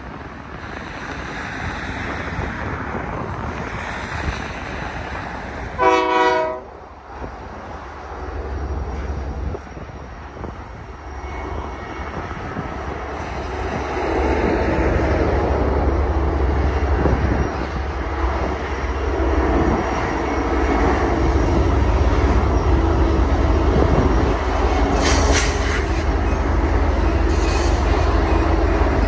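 Union Pacific diesel locomotives leading a long auto-rack train, their engine rumble growing steadily louder as they come closer from about halfway through. A short horn blast sounds about six seconds in, and brief high wheel squeals come twice near the end.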